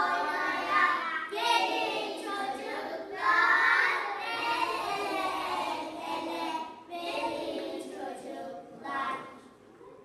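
A group of young children singing together in phrases with short breaths between them; the singing stops near the end.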